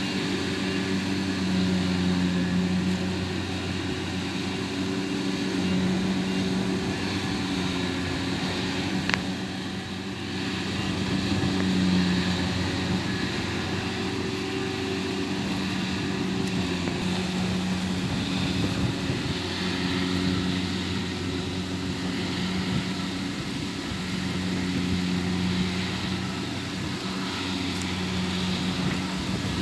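Kubota DC70 Plus combine harvester's diesel engine running steadily under working load as the machine crawls through a boggy rice paddy. A single sharp click about nine seconds in.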